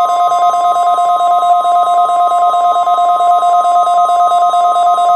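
NOAA Weather Radio warning alarm tone sounding in its weekly test: a loud, steady, shrill electronic tone made of several held pitches, the alarm that trips weather-radio receivers for hazardous watches and warnings.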